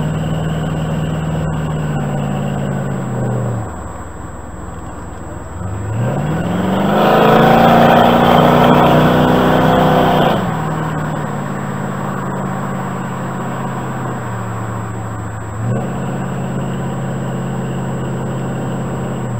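1969 Corvette C3 Stingray's V8 engine under way. It runs steadily, eases off a few seconds in, then revs up hard about six seconds in and holds loud for a few seconds before the throttle is lifted. After that it settles to a steady cruise, with a short rise in revs near the end.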